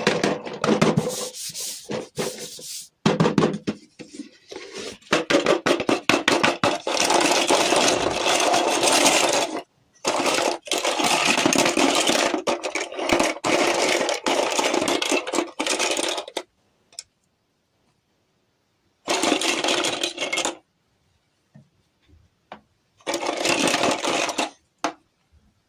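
Close-up rubbing, scraping and clicking of small objects being handled, most likely miniature toys and their packaging being unboxed. The sound runs almost without a break for the first sixteen seconds, then comes in two short bursts with silent gaps between.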